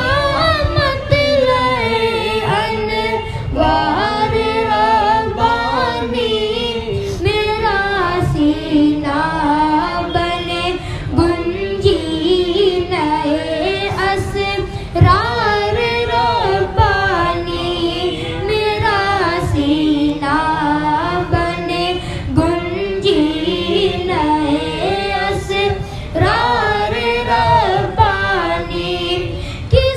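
A boy singing a manqabat, an Urdu devotional song in praise of a saint, solo in a high voice. The melody is ornamented and wavering, over a low rhythmic pulse.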